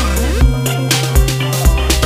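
Background music: a track with deep bass and a steady drum beat.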